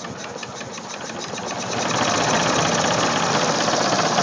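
Student-built, motor-driven piston air compressor running with a fast, even mechanical clatter. It grows louder about a second and a half in as it picks up speed and works up pressure.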